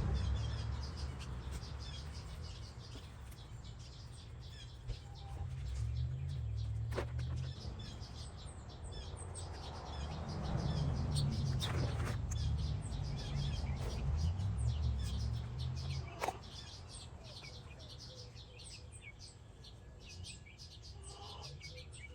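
Small birds chirping and twittering, with low rumbling that comes and goes and a few sharp clicks.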